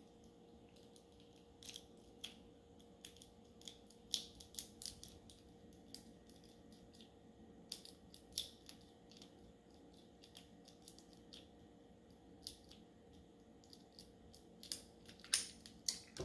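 Lock pick raking the pins of a Master Lock padlock: light, irregular metallic clicks and scrapes, a few at a time, with louder clicks near the end.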